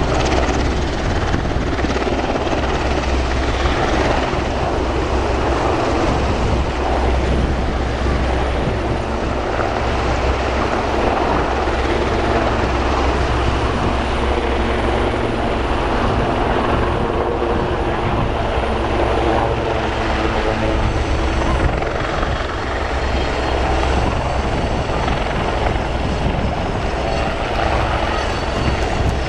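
Steady, loud rotor and turbine noise from a low-flying AgustaWestland AW101 Merlin helicopter; later a Westland Lynx helicopter is heard.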